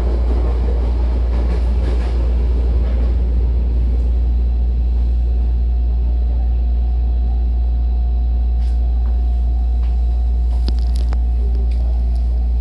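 Hankyu train car interior as the train comes to a stop. The rough running noise fades out over the first few seconds, leaving a steady deep rumble and a thin steady hum, with a few faint clicks near the end.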